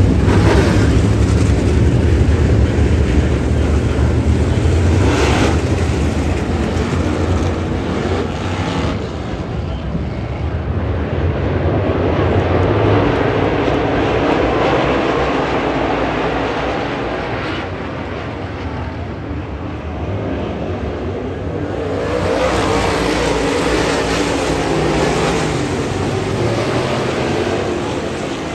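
Several dirt late model race cars running on the track, their engines loud and swelling and fading in waves as the pack goes by, with another surge about two-thirds of the way through.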